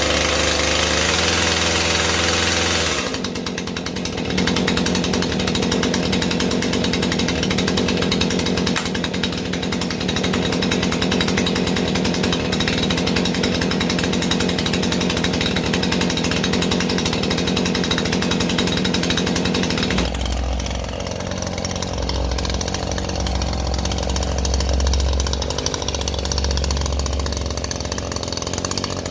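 Husqvarna chainsaw engine running, its note changing about 3 seconds in and again near 20 seconds in, when it drops to a lower, rumbling note.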